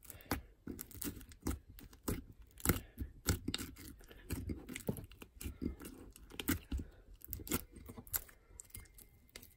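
Slime mixed with foam beads (floam) being squeezed and poked by hand in a glass bowl, giving a string of irregular crunching and crackling clicks.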